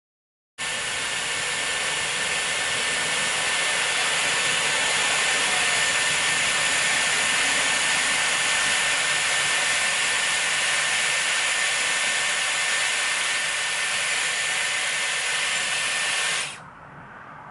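Dyson Airwrap styler running with its curling barrel: a steady rush of blown air with a thin, high, steady whine from the motor. It starts abruptly just after the start and stops near the end.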